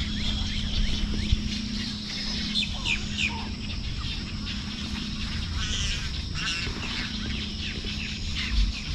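Wild birds chirping and calling at a marsh pond: short high chirps that sweep downward, and a brief trill about six seconds in, over a steady low hum.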